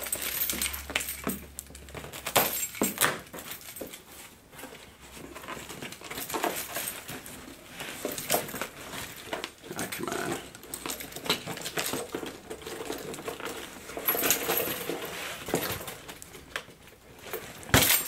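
A bunch of keys jangling and scraping against a taped cardboard box as a key is used to cut through the packing tape, with cardboard rustling and an irregular run of short clicks and scratches.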